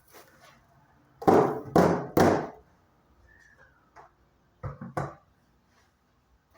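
Knocks of household objects being handled: three loud knocks in quick succession about a second in, then two softer ones near the end.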